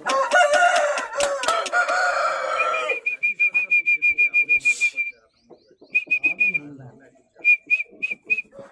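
A rooster crowing: one long call lasting about three seconds. It is followed by rapid, even, high-pitched chirps, about eight a second, coming in three short runs.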